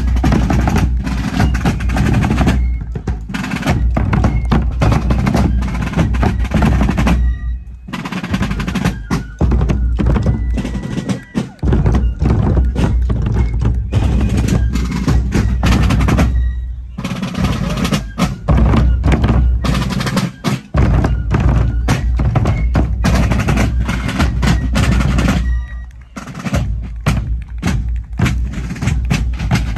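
Fife-and-drum-corps drumming: rope-tension bass drums and snare drums playing a marching beat, with several short breaks.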